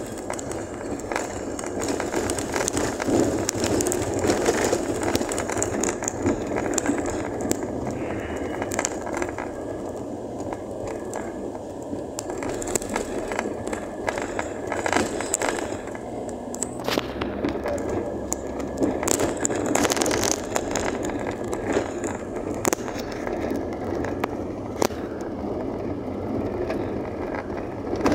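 A vehicle driving over a rough, potholed dirt road: steady tyre and road rumble with frequent knocks and rattles as it jolts over the uneven surface.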